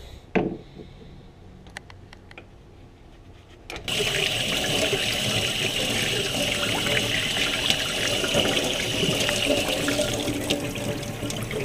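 Tap water switched on about four seconds in and running steadily as the freshly gutted trout are rinsed. Before it, a quieter stretch with a few light clicks.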